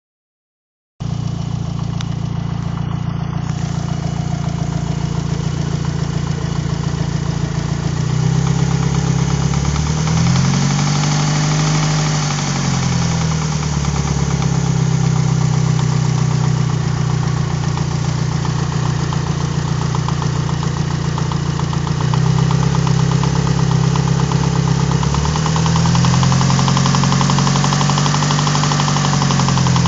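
Mitsubishi Evo IV's 4G63 turbocharged 2.0-litre inline-four running with a steady rhythmic knock, blipped up and back down twice. The knock is louder at the top of the engine and at cylinder 1, and its cause is unknown to the owner: the crank, rod bearings, timing and cylinder leak-down all check out fine.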